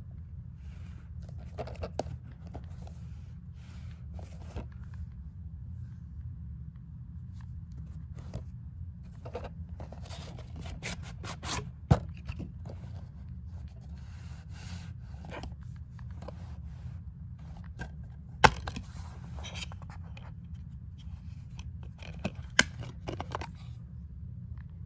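Plastic DVD case being handled: scraping and rustling, broken by a few sharp clicks as the case is snapped open and the disc is popped off its centre hub. A steady low hum runs underneath.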